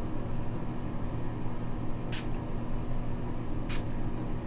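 Two short hisses of a facial mist spray bottle being pumped at the face, about a second and a half apart, over a steady low hum.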